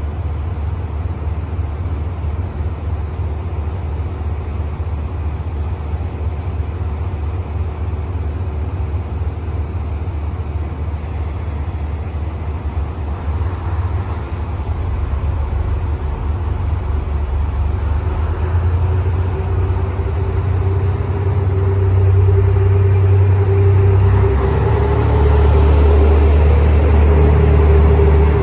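KiHa 183-1000 series diesel railcars pulling away from a station platform. A low diesel engine rumble grows louder as the cars come by, and a steady whine joins in about two-thirds of the way through.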